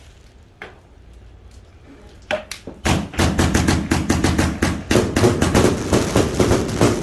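A 245-shot consumer firework cake firing. After a lull with a few single pops, the tubes launch from about three seconds in, in a rapid run of shots and bursts in quick succession.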